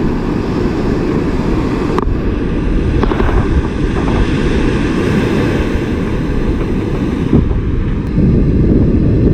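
Wind buffeting the microphone in a steady low rumble, with surf washing behind it; a single short click about two seconds in.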